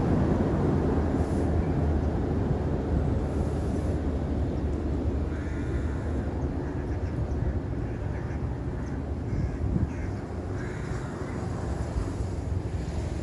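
A few faint bird calls about halfway through and again a little later, over a steady low rumble.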